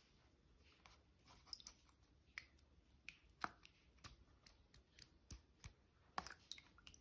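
Faint, irregular small clicks and taps from small plastic toys being handled, the sharpest about three and a half and six seconds in.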